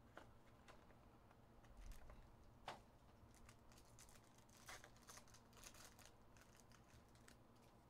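Faint crinkling and tearing of a foil trading-card pack wrapper, with scattered light clicks from handling the card box.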